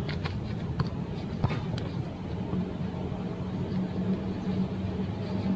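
Outdoor background with a steady low hum and a few light knocks in the first two seconds.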